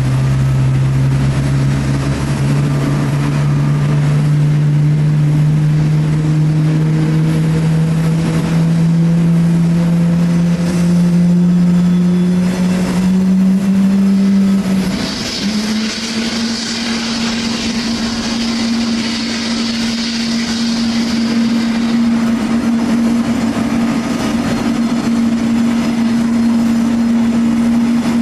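Rolls-Royce Trent 7000 jet engines of a taxiing Airbus A330-900 running, with a strong tone that slowly rises in pitch, steps a little higher about halfway through and then holds steady. A hiss joins for several seconds after the step.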